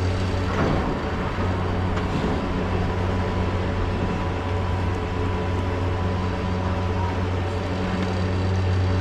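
POMA Challenger detachable quad chairlift running, its drive machinery giving a steady hum with a higher whine over it, and a faint clack about half a second in and again about two seconds in.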